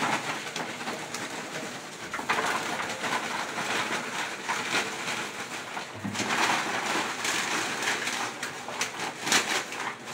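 Tortilla chips crushed inside a crinkling Doritos bag by gloved hands, a dense crackling and crunching that grows louder about two seconds in and again about six seconds in.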